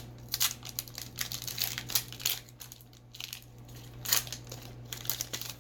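Foil booster pack wrapper crinkling and crackling as it is handled and turned over in the hands, in an irregular string of sharp crackles.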